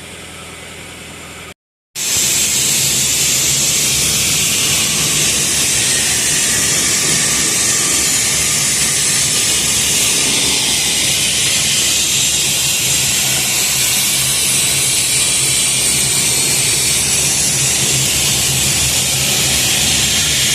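A cutting torch on a CNC table cutting steel plate: a loud, steady hiss with a low hum underneath. It starts abruptly after a brief silence about two seconds in.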